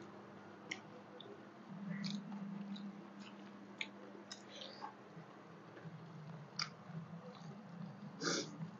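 People eating soft rice mashed with boiled egg and vegetables by hand: scattered mouth smacks and chewing, with fingers squishing the rice against a banana leaf, over a low steady hum. One louder smack comes about eight seconds in.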